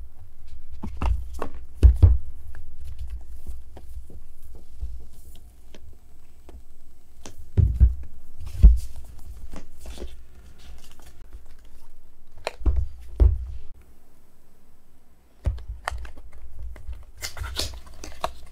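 A cardboard product box and its paperboard inner boxes being opened and handled: scattered taps, clicks and dull thumps of card, with a brief rustle of paper near the end.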